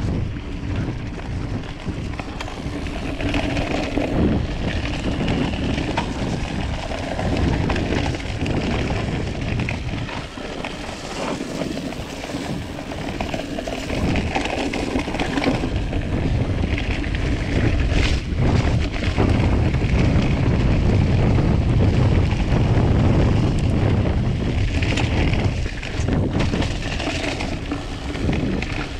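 Full-suspension mountain bike, an Orbea Occam TR M30, riding fast down a dirt forest singletrack: tyres rolling over dirt and leaves, with many short knocks and rattles from the bike going over bumps, under rumbling wind on the camera's microphone.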